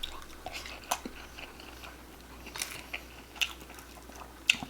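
A person chewing food close to the microphone, with a few sharp, wet mouth clicks and smacks between quieter chewing.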